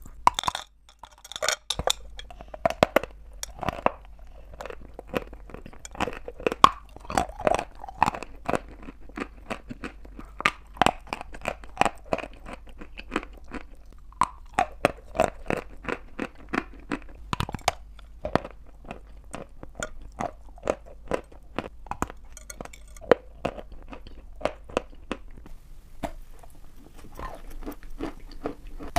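Close-miked biting and chewing of dry chalk pieces: a dense, irregular run of sharp crunches, one bite after another. About three seconds before the end the sound turns softer and more continuous.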